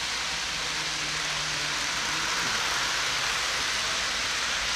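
A steady, even hiss with a faint low hum underneath and no distinct clicks or beats.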